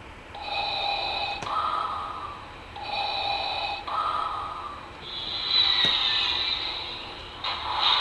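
Darth Vader's mechanical respirator breathing as an electronic sound effect from a children's sound book: two slow in-and-out breaths. A longer, different sound effect follows near the end.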